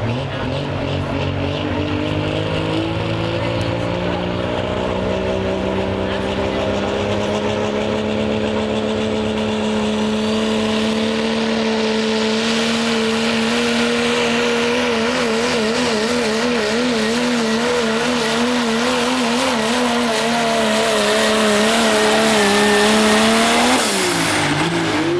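Diesel pickup truck (a second-generation Dodge Ram in the 3.0 Limited Pro Diesel 4x4 class) running at full throttle while pulling a sled. Its engine note climbs slowly, wavers up and down for several seconds midway, and drops sharply near the end as the driver lets off at the end of the pull.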